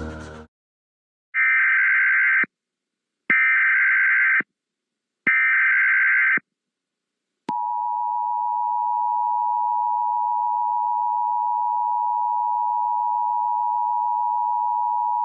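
Emergency Alert System tones: three one-second bursts of SAME header data, the digital code that carries the alert's type, area and time, followed about halfway in by the long, steady two-tone attention signal (853 and 960 Hz) that precedes the spoken warning.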